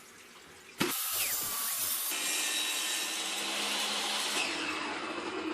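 Table saw switched on about a second in, running loud through a cut in a test board on a crosscut sled, then switched off and winding down, its pitch falling near the end. This is the fifth cut of the five-cut test for squaring the sled's fence.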